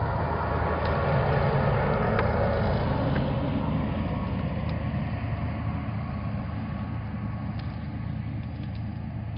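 A motor vehicle's engine going by, swelling about two seconds in and then slowly fading, over a steady low hum, with a few faint clicks.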